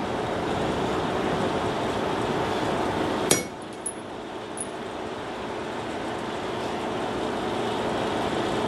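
Steel letter stamps clinking as they are picked out of their box on the anvil, with one sharp metallic clink about three seconds in and a couple of faint ticks after it, over a steady rushing background noise.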